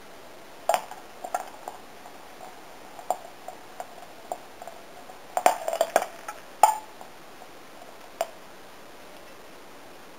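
Sodium metal reacting with hot water in a glass jar: a run of sharp pops and cracks, about a dozen in all, irregularly spaced. The loudest come in a quick cluster just past halfway, as burning sodium spatters out of the jar in sparks, and one last pop follows about two seconds later.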